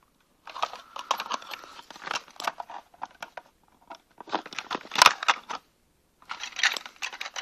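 Handling noise from the opened plastic housing of a strobe light being moved by hand: clicks, rubbing and rattling in three bursts, with a sharp knock about five seconds in.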